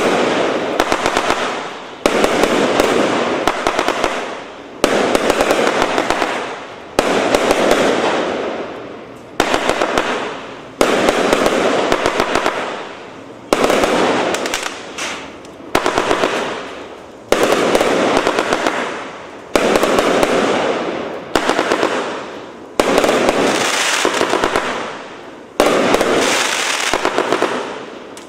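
A 100-shot, 1-inch-calibre fireworks cake firing in sequence: a sudden loud burst roughly every two seconds, each followed by a dense crackle that fades away before the next.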